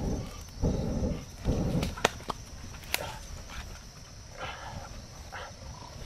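A man blows hard on smouldering embers in three strong puffs, and the wood fire catches. A few sharp crackling snaps from the burning wood follow.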